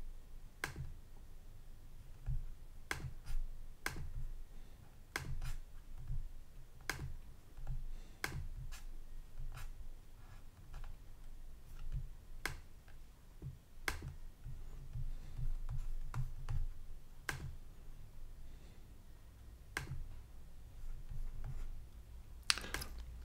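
Single computer mouse clicks, irregularly spaced about one to two seconds apart, with a quick cluster of clicks near the end, over a faint low hum.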